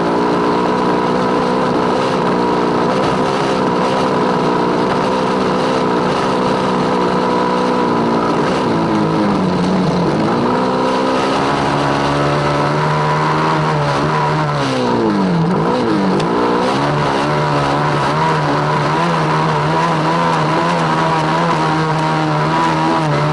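Small single-cylinder motorcycle engines running under throttle. The engine note dips and climbs back up about ten seconds in, and again around fifteen seconds in, as the revs fall and rise.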